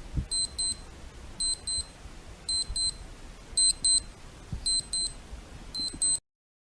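Digital alarm clock beeping: six pairs of short, high-pitched electronic beeps, about one pair a second, then it cuts off.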